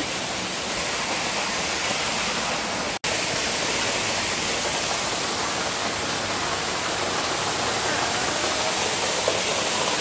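Waterfall splashing down a stone wall: a steady, full rush of falling water, which drops out for an instant about three seconds in.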